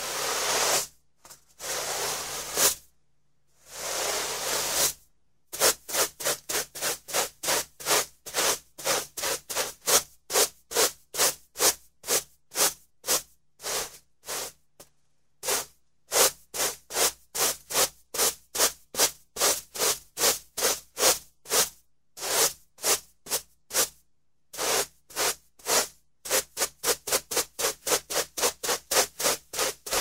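Corn broom sweeping carpet: a few long, slow swishes, then quick short strokes at about three a second, broken by a couple of brief pauses.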